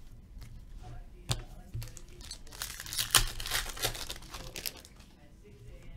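Upper Deck Portfolio hockey card pack wrapper crinkling and tearing as it is handled and opened by hand: a run of crackles loudest through the middle, with a few sharp clicks.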